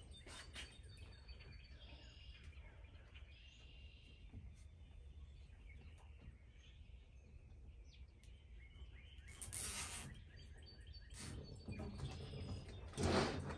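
Plastic zip ties being pulled tight around a wire basket rim: a short ratcheting zip about two-thirds of the way in and another near the end, with a click between them. Before that, burlap rustles faintly under the hands and birds chirp faintly.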